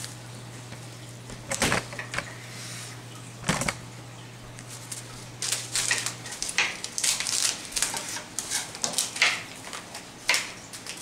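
Kitchen knife cutting red bell pepper on a plastic cutting board: sharp knocks of the blade on the board, a few spaced apart at first, then a quicker irregular run over the second half. A low steady hum underneath stops about six seconds in.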